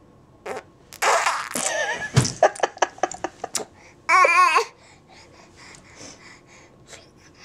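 Six-month-old baby blowing raspberries (buzzing 'fart' noises with the lips) mixed with laughter and babbling. About four seconds in comes a short, high, wavering squeal.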